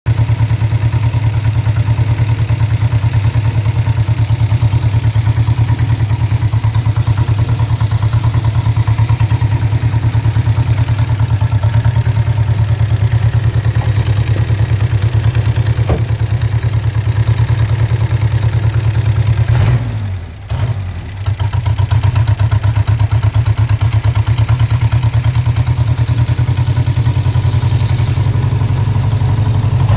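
Ford 1.6-litre engine running steadily at idle on a Holley Sniper EFI 1100 throttle-body fuel injection, with an even pulsing exhaust beat. About twenty seconds in the sound briefly drops away and falters, then picks back up to the same steady idle.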